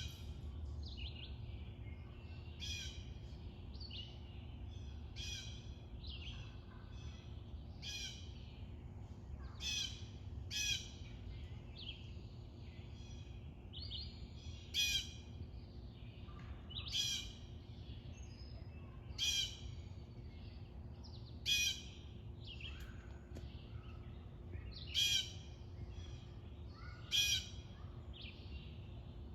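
Wild birds calling in a spring backyard chorus, many short calls overlapping. From about halfway in, one bird gives a loud short call about every two seconds.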